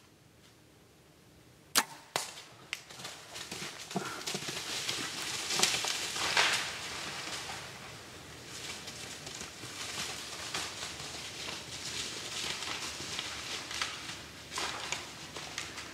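A bow shot: a sharp snap about two seconds in with a second crack just after, then a deer crashing off through dry fallen leaves, loudest around six seconds in and going on to the end.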